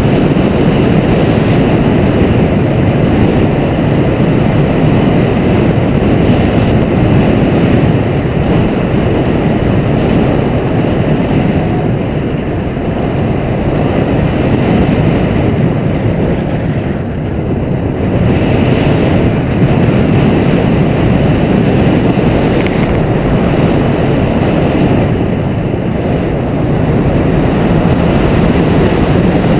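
Wind rushing over the microphone of a camera on a hang glider's boom in flight: loud, steady airflow noise, heaviest in the low end, easing briefly a few times.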